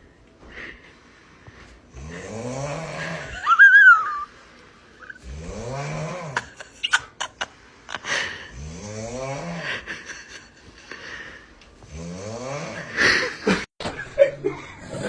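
Snoring: four long, drawn-out snores about three and a half seconds apart, each rising and then falling in pitch. A brief high whistle comes right after the second snore, and a louder, noisier burst comes near the end.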